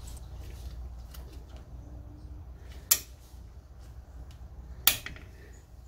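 Two sharp metallic clicks about two seconds apart, with a few fainter ticks, as vise grip locking pliers are clamped onto a brake pad and caliper, over a low steady hum.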